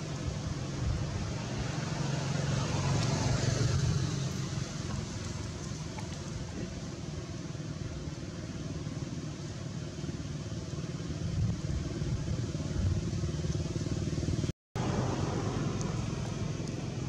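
Steady rumble of a motor vehicle engine, louder for a few seconds near the start. The sound cuts out for a moment near the end.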